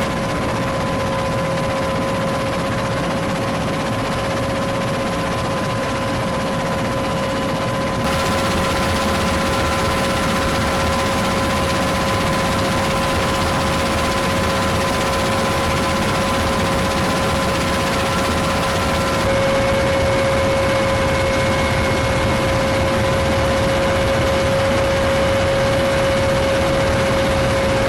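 Steady noise of military helicopter turbine engines and rotors, with a constant high whine over a dense rumble. The sound shifts abruptly twice, about 8 and 19 seconds in.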